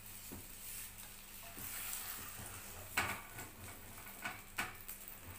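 Egg frying in a nonstick frying pan, sizzling softly, with a spatula scraping and knocking against the pan as the egg is turned: one sharp knock about three seconds in and two lighter ones a little after four seconds.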